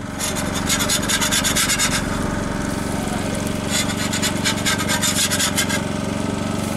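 Food sizzling and crackling on a Blackstone flat-top griddle, the crackle thinning out about two seconds in and again near the end, over a steady low hum.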